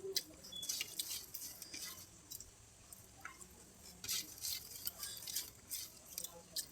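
Close-up eating sounds: someone chewing rice and curry, with an irregular run of short wet clicks and smacks from the mouth.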